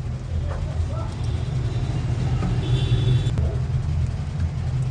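Smartphone loudspeaker clicking faintly and giving a short high buzz as ohmmeter probes are touched to its contacts, the sign that the speaker coil is intact, over a steady low hum.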